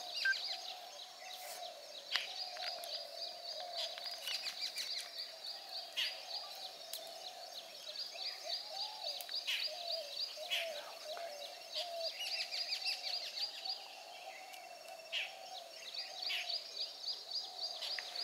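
Birds calling in the wild: a steady, wavering low call runs under repeated short, high ticking trills, with scattered sharp clicks.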